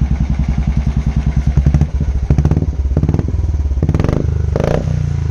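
Royal Enfield Bullet 350's single-cylinder engine running through an aftermarket Cobra silencer, with the catalytic converter still fitted: a steady low thump at idle, with a few short throttle blips in the second half. The note is deep and bassy.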